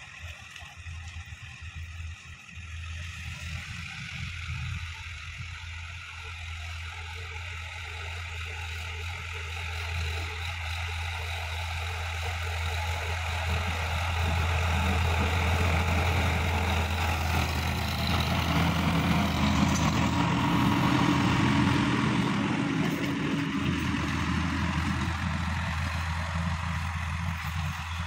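Sonalika DI-50 RX tractor's diesel engine running steadily under load as it pulls a rotary tiller through dry soil. The sound grows louder over the first half and fades in the last few seconds as the tractor moves away.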